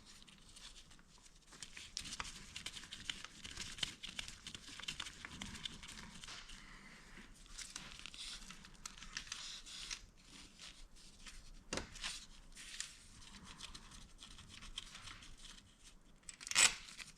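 Quiet scratchy rustling and crinkling from hands at work on the motorcycle engine, with a sharp click about twelve seconds in and a louder one near the end.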